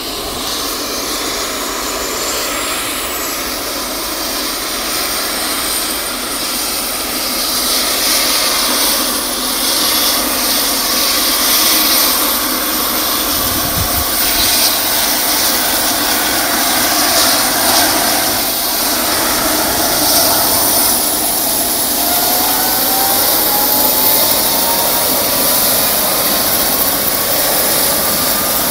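Eurocopter EC135 P-2 helicopter's twin turboshaft engines and rotor running on the ground while it spools up for takeoff. The turbine whine slowly rises in pitch and grows louder, and a second rising whine joins in about two-thirds of the way through.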